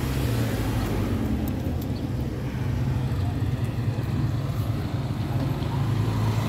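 Steady low rumble of road traffic engines.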